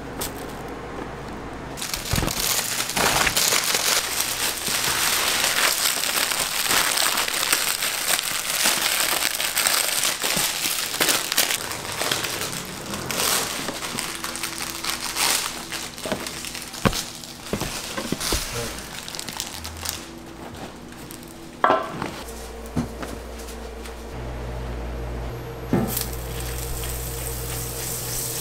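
Food-prep handling noise in a burger kitchen: crinkling and rustling with scattered knocks and clicks, busiest in the first two-thirds. In the last few seconds it settles into a steady hum with an occasional knock.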